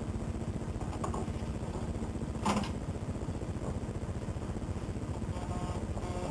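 Macintosh SE's 800K floppy disk drive reading a disk: a rapid mechanical buzzing rattle, with a knock about two and a half seconds in and pitched whirring tones coming in near the end.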